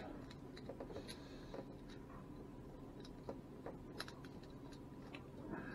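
Faint, scattered small metallic clicks and ticks of split rings and hooks being handled while they are fitted onto a homemade beer-bottle-cap fishing lure.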